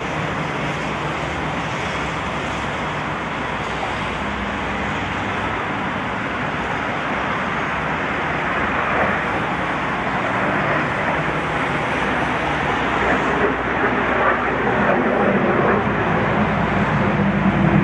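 BAC Strikemaster's Rolls-Royce Viper turbojet heard from the ground as the jet flies its display: a steady rushing jet noise that grows slowly louder toward the end.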